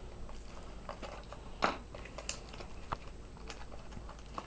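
Trading cards being handled, with faint rustling and scattered small clicks, one a little louder about halfway through.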